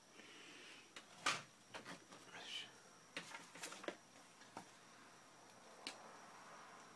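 Scattered small clicks and rustles from study materials being handled at a desk, with one sharp click about a second in.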